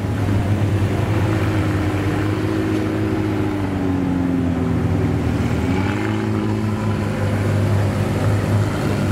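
McLaren Senna GTR's twin-turbo V8 running at low revs as the car creeps along, a steady low drone whose pitch sags slightly and picks back up about six seconds in.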